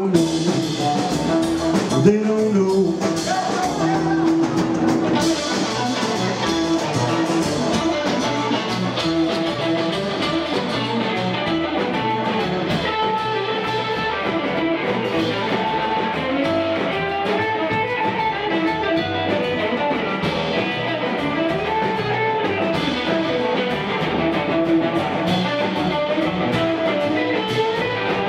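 Live blues band playing an instrumental break: electric guitar over upright double bass and drums, with a steady beat and no singing.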